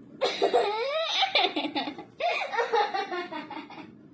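High-pitched laughter in two bursts, with a short break about two seconds in; the second burst trails off near the end.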